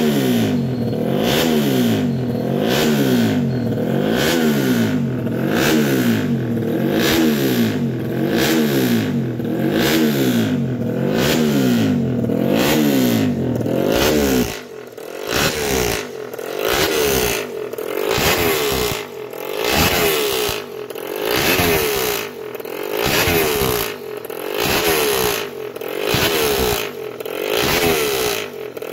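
A 150 cc single-cylinder four-stroke race underbone motorcycle engine is being warmed up on the stand. The throttle is blipped over and over, the revs rising and falling about once every second and a half. About halfway through, the deep low rumble drops out and the revs keep rising and falling at a higher pitch.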